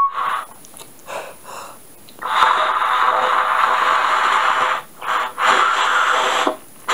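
Breath blown hard through an old 17th/21st Lancers bugle without a clear note: a few short puffs, then two long airy blows, the second shorter, with only a faint trace of pitch. The bugle is failing to sound properly; the player finds it weird that it does not play.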